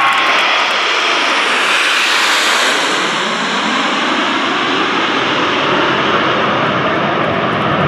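Formation of Aermacchi MB-339 PAN jet trainers flying past low, each powered by a single turbojet. It makes a loud, dense rushing jet noise whose high end is strongest about two seconds in and then slowly fades as the formation moves away.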